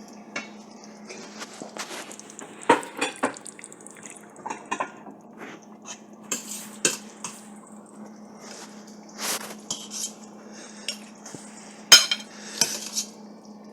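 Serving spoon clinking and scraping against a pot and plates as food is dished out, in irregular clinks with a steady low hum underneath.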